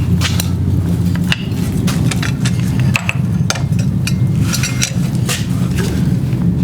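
Hand hammer striking a steel hinge strap on an anvil in irregular ringing blows while its end is forged, over a steady low hum.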